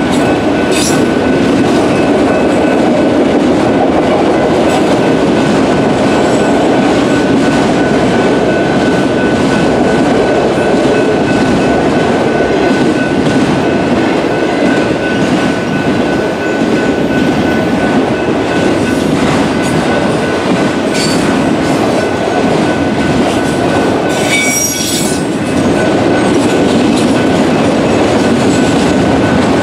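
Freight train of autorack cars rolling steadily through a grade crossing, its wheels clattering over the rails. The crossing's Western-Cullen-Hayes electronic bell keeps ringing as a steady tone above the train, and the bell sounds distorted and faulty. A brief high wheel screech comes about five seconds before the end.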